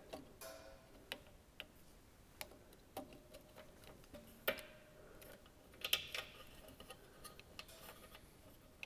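Faint, scattered clicks and taps of hands working small plastic and wired parts: wiring being tucked into an electrical box and an Omron plug-in timer relay being pushed into its socket. The sharpest click comes about four and a half seconds in, with a quick group of clicks around six seconds.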